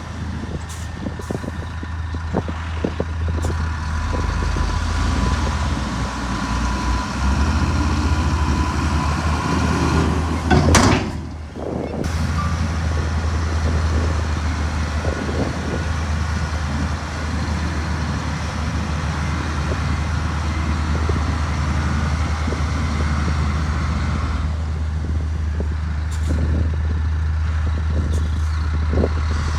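Heavy diesel earthmoving machinery running steadily with a low engine drone. About eleven seconds in, a loud hiss swells and then cuts off sharply.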